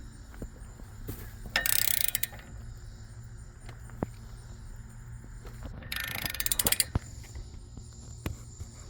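Hand ratchet clicking in two short bursts, about a second and a half in and again about six seconds in, as a lug nut is cranked down to draw a new wheel stud into the hub; a few single metal clicks between.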